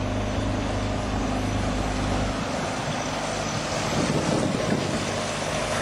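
A boat's motor running steadily under a broad rush of wind on the microphone; the deepest part of the engine hum drops away about two seconds in.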